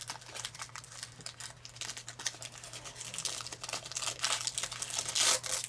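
Trading cards and their foil booster-pack wrapping being handled: crinkling and rustling with many small clicks, louder crinkles about four and five seconds in, over a faint steady low hum.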